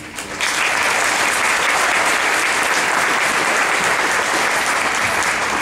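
Audience applauding, breaking out just after the start and holding steady.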